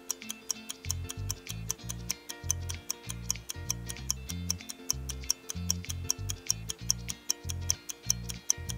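Countdown-timer ticking sound effect, a fast, even clock-like ticking, over background music whose bass line comes in about a second in.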